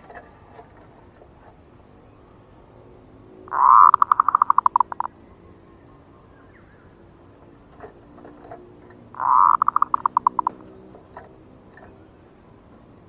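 Zebra dove (perkutut) lure call, given twice. Each call opens with a held note and breaks into a quick run of short, clipped coos.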